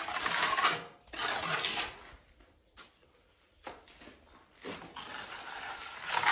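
Steel trowel scraping wet mortar onto a brick door jamb and smoothing it, in strokes about a second long: two close together at the start, then a longer run of scraping near the end.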